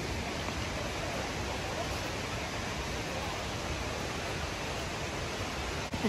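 Steady rushing noise with no distinct events.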